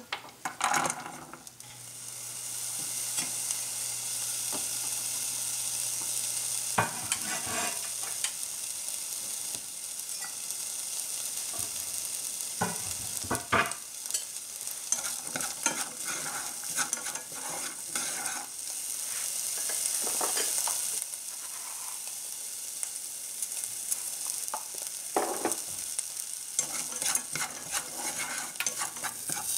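Diced onion tipped with a brief clatter into a hot nonstick saucepan, then sizzling steadily as it fries. Wooden chopsticks scrape and tap against the pan now and then as it is stirred, most of all near the end.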